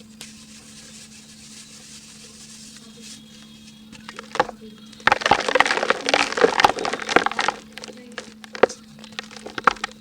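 Dry, brittle chunks of pink ASMR mud being crumbled, giving sharp crackles and snaps. The crackles start about four seconds in, come thick for a couple of seconds, then thin out to scattered clicks near the end.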